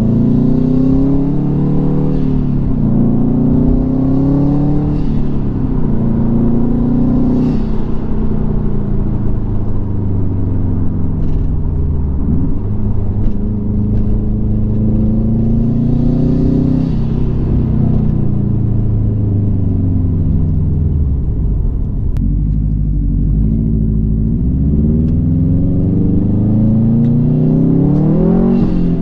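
2005 Subaru Impreza WRX STi's turbocharged flat-four engine accelerating through the gears, heard from inside the cabin. The pitch climbs in each gear and drops back at each shift, several times over.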